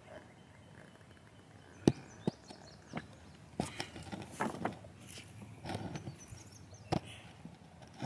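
A series of irregular knocks and clicks, roughly a dozen, spread unevenly. The loudest is a single sharp knock about two seconds in.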